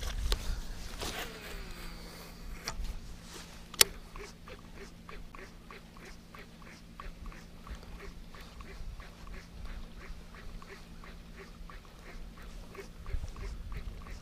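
Topwater musky lure cast out and retrieved across calm lake water, gurgling and plopping in a steady rhythm of about three pulses a second. A sharp click a little under four seconds in.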